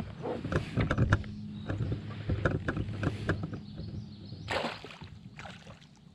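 A hooked fish splashing among lily pads as it is reeled in on a baitcasting rod: a run of short splashes and knocks, with a bigger splash about four and a half seconds in.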